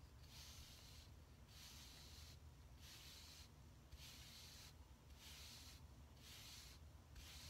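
Bristle wave brush swept repeatedly over short hair: a faint soft swish with each stroke, about one stroke a second.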